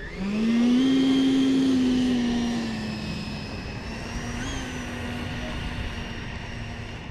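E-flite Viper 90mm electric ducted fan jet spooling up with a rising whine. The fan whine is loudest for the first couple of seconds, then settles to a slightly lower, steadier tone as the jet runs away down the runway on its takeoff roll.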